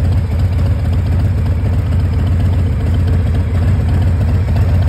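Harley-Davidson Softail Heritage Classic's Milwaukee-Eight 114 V-twin idling steadily through aftermarket Vance & Hines exhaust pipes, a loud, low, even pulse.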